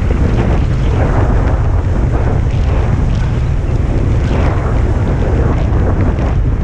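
Heavy wind buffeting on a helmet-mounted camera's microphone during a fast mountain-bike descent, with tyres running over a dirt trail and frequent small knocks and rattles from the bike.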